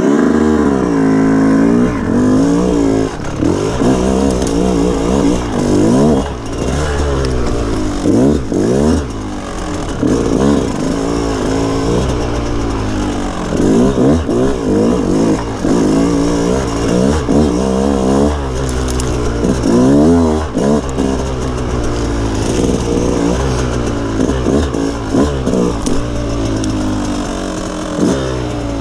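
Dirt bike engine pulling away and then revving up and down while riding a rough trail, its pitch rising and falling every second or two with throttle changes.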